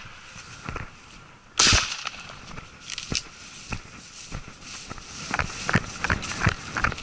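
A single loud shotgun shot with a short ringing tail about a second and a half in. From about five seconds, quick irregular footfalls of someone running over grass.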